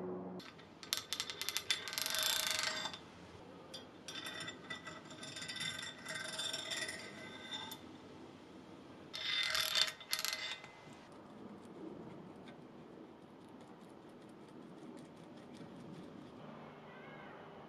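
Steel parts of a bench vice clinking and scraping against each other as they are fitted by hand: the tommy-bar handle on the screw and the sliding jaw in the body. It comes in three bursts of rattling with a faint metallic ring.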